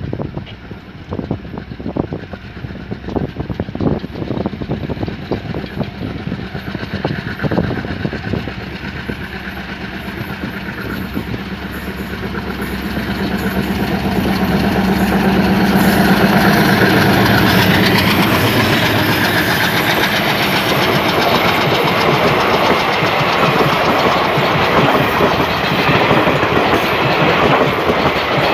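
Twin WDM-3A ALCO diesel locomotives approach at speed with a steady engine drone that swells to its loudest as they pass, about 16 seconds in. The clatter of the passenger coaches' wheels over the rail joints follows.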